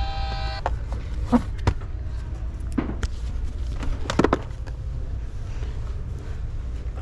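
A vehicle horn sounds steadily and cuts off about half a second in. A steady low vehicle rumble follows, with a few sharp knocks and clicks in the first half.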